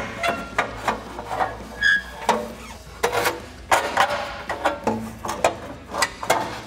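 Knocks and scraping of a loose metal exhaust tailpipe being worked out of the way under the vehicle, over quiet background music.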